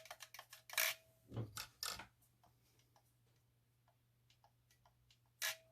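Sharp plastic clicks and light ticks from handling a Flysky FS-GT5 pistol-grip RC transmitter as its steering wheel and throttle trigger are worked. There are a handful of clicks in the first two seconds and one more near the end, with faint ticks between.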